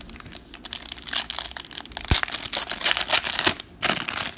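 A foil trading-card pack being torn open by hand: the wrapper crinkles and rips in dense crackling bursts, with a brief pause shortly before the end.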